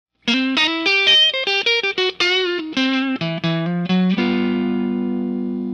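Intro music on a guitar: a quick run of single picked notes, then a chord struck about four seconds in and left to ring out, slowly fading.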